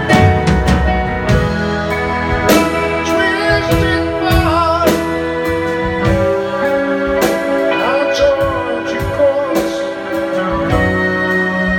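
Live rock band playing: electric keyboard, electric guitar and drums, with a soprano saxophone among them.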